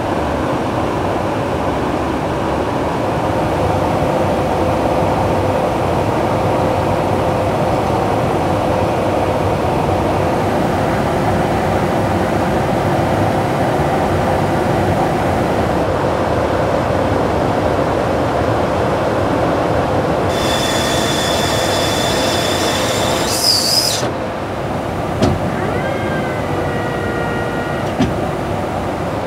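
Steady roar of jet engine and airflow noise heard inside a refueling tanker aircraft, with a faint steady hum. About twenty seconds in a high hiss and whine join it, then cut off suddenly; a few faint falling tones and two light clicks follow.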